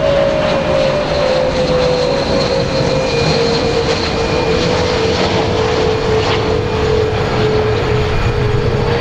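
Airbus A320-200 twin jet engines at go-around power as the airliner climbs away overhead: a loud, steady engine noise with a humming tone that slides slowly down in pitch while the aircraft recedes.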